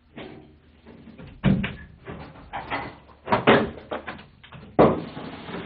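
A wooden interior door being opened, among several irregular knocks and thuds.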